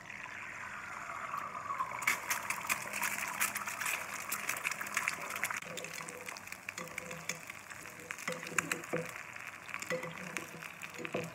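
An egg frying in hot oil in a small nonstick pan: steady sizzling with many sharp crackles and spits, which starts as the egg goes into the pan, while oil is spooned over the egg to crisp it.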